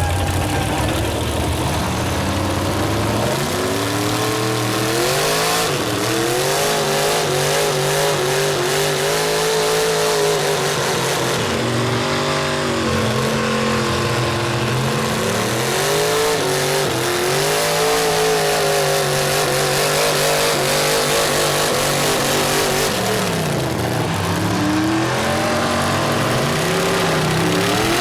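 Mud truck engine revving hard: after about three seconds of low running, the engine climbs and drops in pitch again and again as the throttle is worked.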